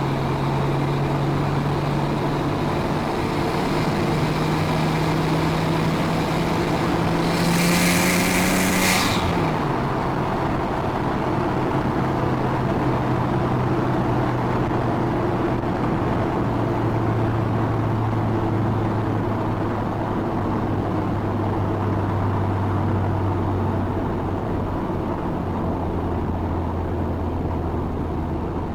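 Nissan Skyline R34 GT-T's turbocharged straight-six with a full exhaust, under way. The engine note climbs steadily for about eight seconds, then drops sharply with a loud hiss as the revs fall. It then settles into a steady cruise, the pitch easing slowly lower.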